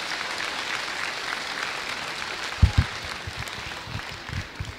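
Audience applauding, the clapping thinning out toward the end, with a few dull thumps a little over halfway through.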